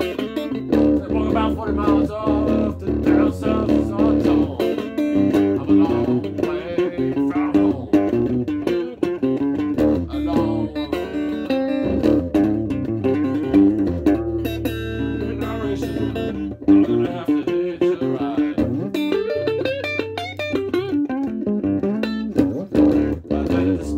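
A guitar played with plucked notes and chords over a low bass line.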